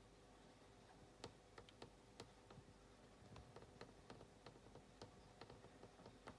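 Near silence broken, from about a second in, by faint, irregular sharp clicks, a few a second and uneven in strength.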